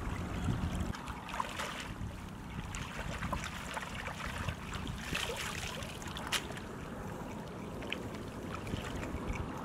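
Shallow water sloshing and trickling, with scattered small splashes and a low wind rumble on the microphone.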